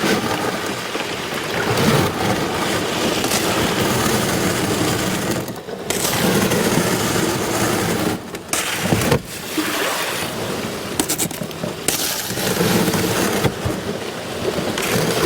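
Canoe hull and paddle pushing through slushy river ice: a continuous scraping, hissing noise of slush against the boat, broken by a few short pauses between strokes. The slush is too thick for the canoe to get much further.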